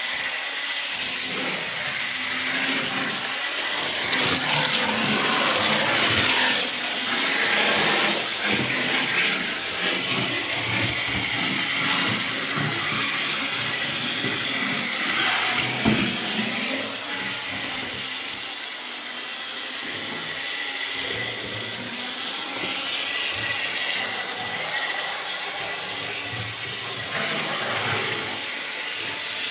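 Model trains and a model double-deck tram running on the layout's track: a steady rushing rattle of wheels on rail with a faint steady whine, and one sharp click about halfway through.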